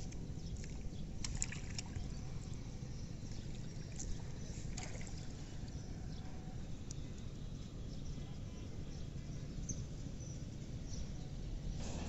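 Steady low rumble of wind on the microphone by open water, with a few faint short clicks.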